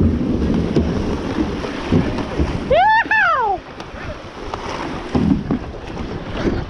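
Rushing, splashing water around a kayak's hull as it runs a small river rapid, with wind buffeting the microphone and occasional paddle knocks. About three seconds in, a person lets out one high whoop that rises and then falls.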